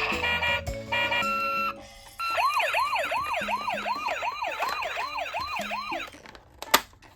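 Electronic toy ambulance siren in a fast yelp: rising sweeps repeating about three times a second, starting about two seconds in and stopping abruptly near the end. It is preceded by a buzzy electronic sound with steady tones.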